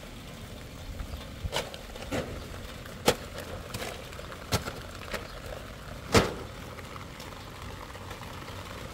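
A handful of sharp knocks at irregular intervals, the loudest about three seconds in and again about six seconds in, over a steady low hiss.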